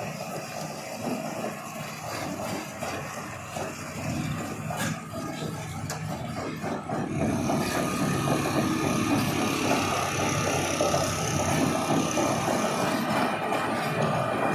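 Excavator engine running steadily, growing louder about seven seconds in.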